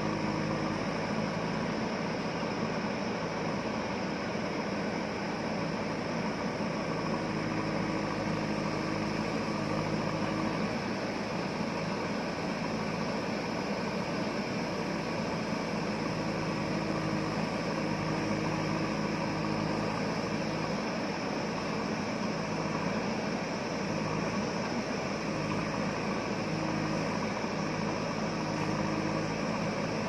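Diesel engine of a JCB 3DX backhoe loader running steadily while its backhoe arm digs into the hillside.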